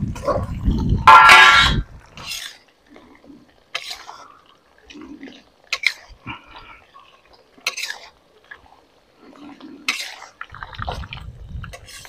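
Long metal spatula scraping and knocking against a steel wok as prawns are stirred in hot frying oil, in several separate strokes. A loud rumbling noise fills the first two seconds.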